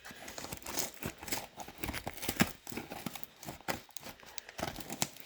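Parcel packaging being pulled and torn open by hand: irregular crinkling and rustling with sharp snaps.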